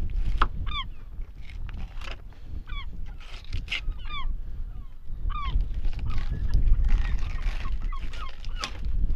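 Gulls calling over the ice: a series of short cries, each bending down in pitch, repeated every second or two, over a steady low rumble.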